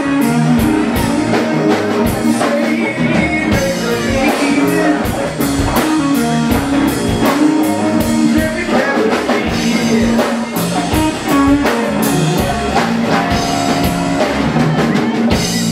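Live blues-rock band playing: Fender Stratocaster electric guitar, electric bass and drum kit, with steady bass notes and frequent drum hits. Heard through a camcorder's built-in microphone.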